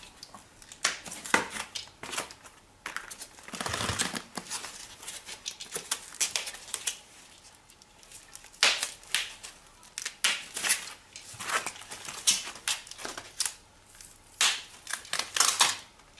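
Plastic and foam packaging being pulled off a new bicycle's fork and frame by gloved hands: irregular bursts of crinkling, rustling and tearing.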